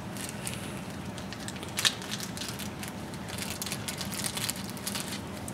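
Small clear plastic bag of servo mounting hardware crinkling and crackling as it is handled and opened, with one sharper crackle about two seconds in and denser crackling near the end.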